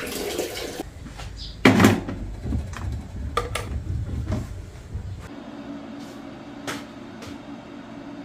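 An electric kettle set down onto its power base with a single solid knock, then clicks and small knocks as its plug is pushed into a wall socket and the kettle is handled. A few lighter clicks follow near the end.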